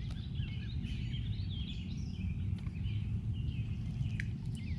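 Several songbirds chirping and singing, with quick, overlapping high notes, over a steady low rumble of outdoor noise.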